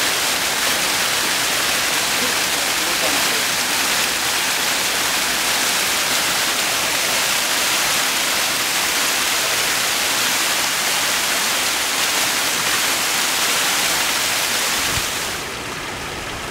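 Small waterfall splashing over rocks: a loud, steady rush of falling water that drops to a quieter level about a second before the end.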